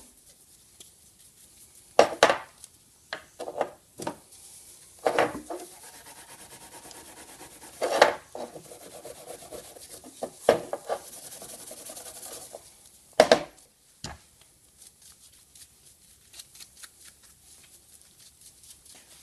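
Steel wool scrubbed over a machined steel locking block, a steady rasping rub through the middle stretch. Several sharp knocks break into it, and only small clicks remain near the end.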